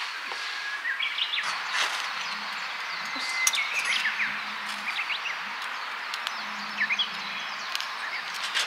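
Birds chirping in short, scattered calls over a steady outdoor hiss, with a few light clicks.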